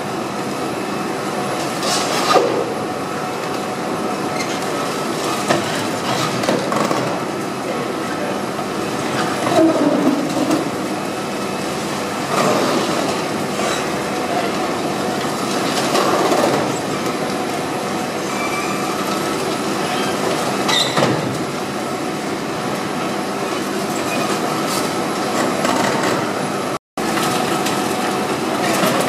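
Long-reach demolition excavator working on a concrete multistorey car park: steady engine and hydraulic noise with scattered cracks and thuds as concrete is broken away and falls. The sound drops out for an instant near the end.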